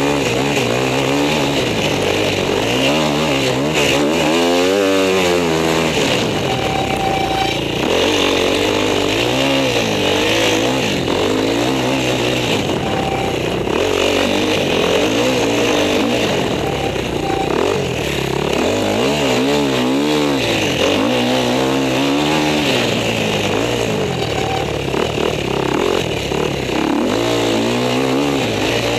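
Enduro motorcycle engine under way, revving up and down over and over, its pitch rising and falling every second or two as the throttle is opened and closed.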